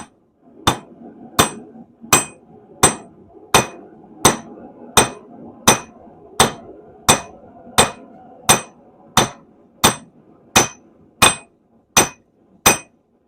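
Hand hammer striking a hot stainless steel rod on an anvil in a steady rhythm, about three blows every two seconds, each with a short metallic ring: hand-forging a taper into the rod. A faint steady hum carries on between the blows.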